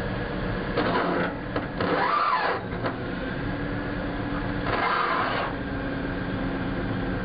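Caterpillar 988F wheel loader's diesel engine running steadily, with three short rushing surges about one, two and five seconds in as the bucket hydraulics are worked to lower and raise the bucket.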